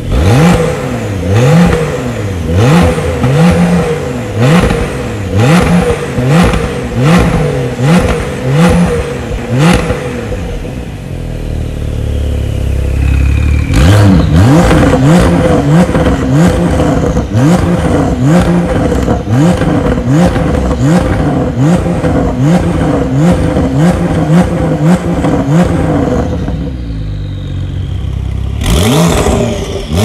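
Porsche 992 Carrera GTS twin-turbo flat-six through a Fi Exhaust valved muffler, revved in quick throttle blips about once a second. The revs settle to a steadier, lower note about ten seconds in and drop quieter near the end before the blipping starts again.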